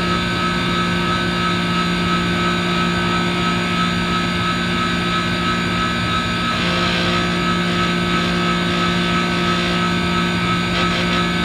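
Manitowoc commercial ice machine running, its compressor and fan making a steady hum with a constant higher whine over an even rush of air.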